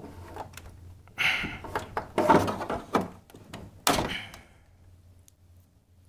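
A plastic spudger prying at the clipped-together plastic case of an NEC MultiSync CRT monitor: a run of knocks, plastic clicks and short scraping creaks. It ends in a sharp snap about four seconds in as the spudger's tip breaks off.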